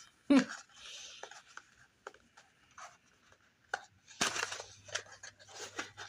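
Packaging being handled: scattered rustles, taps and clicks, with a denser cluster of clicks about four seconds in.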